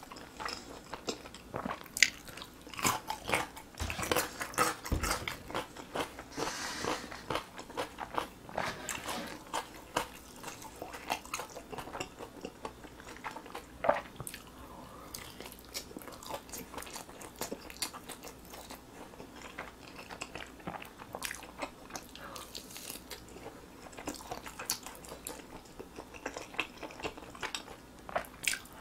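Close-miked eating: biting and chewing glazed roast chicken drumsticks and crunching pickled radish cubes, a steady run of bites and chews that is busiest in the first half.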